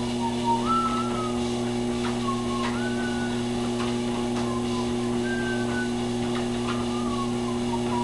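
Treadmill motor running with a steady hum. Over it come short, high, whistle-like gliding tones about once a second, and a few light ticks.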